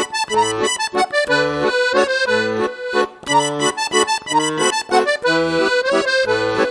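Background music: an accordion tune over a bouncing bass-and-chord accompaniment that alternates about twice a second.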